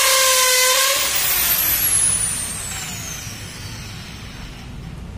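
Corded electric drill running at full speed, drilling a hole in an aluminium high-security number plate, then released about a second in, its whine dropping in pitch and fading as the motor spins down.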